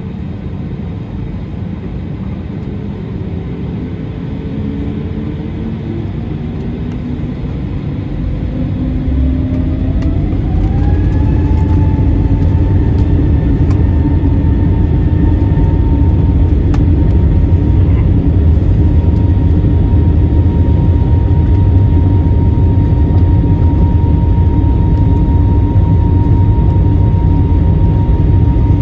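Boeing 737-800's CFM56-7B turbofan engines spooling up to takeoff thrust, heard from inside the cabin: a whine climbs in pitch and levels off about eleven seconds in as the roar grows louder, then holds steady through the takeoff roll.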